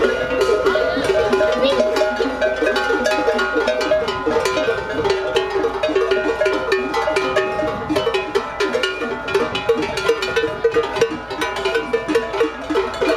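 Many cowbells on a herd of cattle clanking irregularly and overlapping in a dense metallic jangle.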